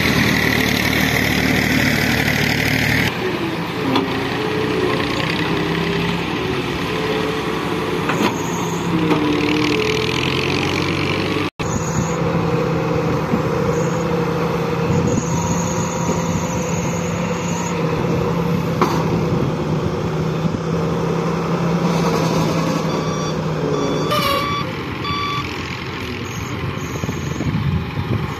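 Daewoo wheeled excavator's diesel engine working under load, its pitch shifting as the hydraulics swing and lift the boom and bucket. The sound drops out for an instant about halfway, and a few short high beeps sound near the end.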